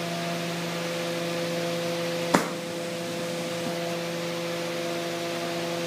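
Steady hiss with a constant hum, the running background of a glassblowing torch station. One sharp click comes a little over two seconds in.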